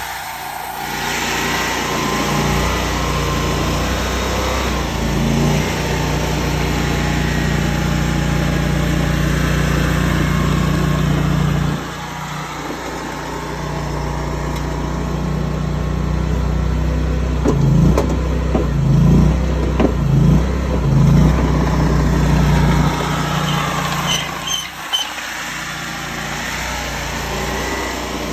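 Tracked mini skid steer's engine running under working load as the machine moves material. Its low drone drops back about twelve seconds in, then rises and falls four times in quick succession before easing off again near the end.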